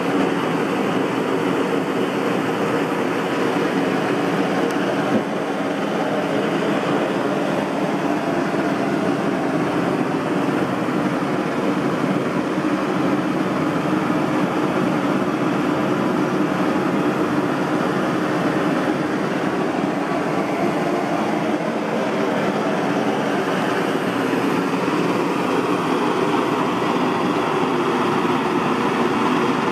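Three Primus model 632 brass blowtorches burning together at full flame, their pressurised burners giving a steady, unbroken rushing noise.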